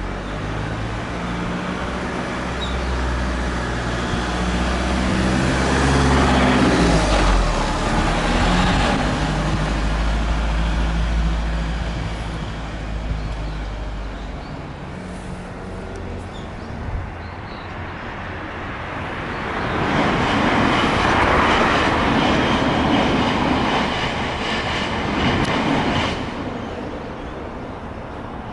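Nankai Main Line electric train passing over a level crossing: a rush of wheel and running noise that swells about two-thirds of the way through and then fades. Before it, a steady low engine hum from vehicles waiting at the crossing.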